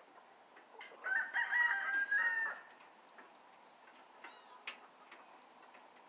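A rooster crows once, about a second in, one segmented call lasting about a second and a half. Faint short clucks and chirps come from the flock around it.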